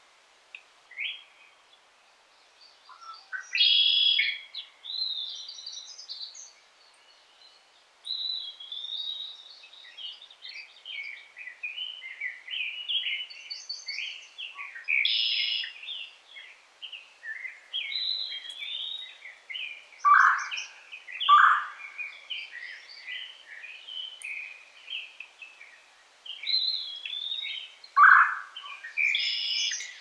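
Several songbirds singing in woodland, overlapping chirps and warbled phrases, with a few louder, lower notes in the second half. A faint, steady stream murmur runs underneath.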